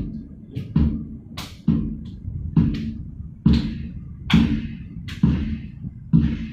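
Heavy thumps about once a second, each with a short ringing tail, in a steady beat.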